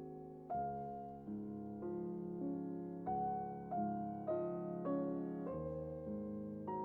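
Background music: a slow melody on piano or electric piano, single notes struck a little under two a second and left to ring.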